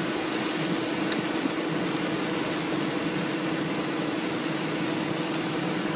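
Truck-mounted water-well drilling rig running with a steady hum, over the rushing of foamy water gushing out of a freshly drilled borehole. A short tick about a second in.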